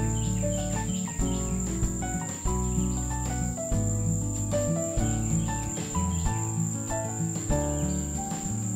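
Instrumental background music, a melody of short sustained notes over a steady bass line, with a continuous high-pitched insect drone running underneath.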